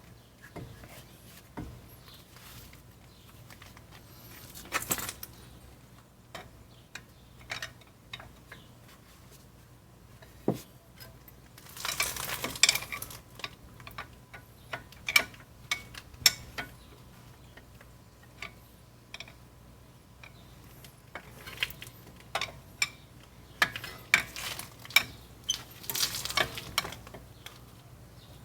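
Metal clicks, clinks and knocks of a brake caliper and pads being wiggled loose and handled. They come sporadically, with busier clusters about 12 seconds in and over the last several seconds.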